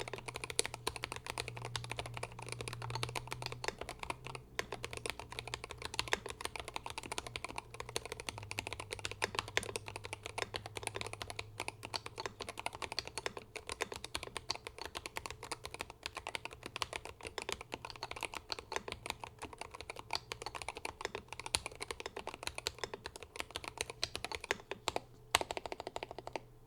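Continuous fast typing on a Glorious GMMK 3 HE 75% keyboard. It has hand-lubed Fox Red Hall-effect magnetic switches, hand-lubed stock stabilizers, stock plate and keycaps, and a tape mod with full foam. The keystrokes come in a dense, even stream.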